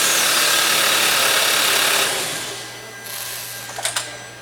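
Hyundai Elantra GT engine cranking on its starter motor for about two seconds, then dying away without catching. This is the intermittent no-start, with no crankshaft position sensor signal during cranking. A couple of short clicks come near the end.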